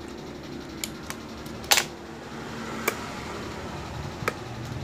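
A handful of sharp little clicks and taps, the loudest about two seconds in, from hands handling a small circuit board on a wooden workbench, over a steady low background hum.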